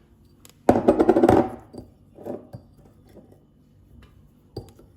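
Chopped onion and garlic tipped from a bowl into a blender jug: a clattering rush lasting under a second, then a few light knocks of the bowl or spoon against the jug.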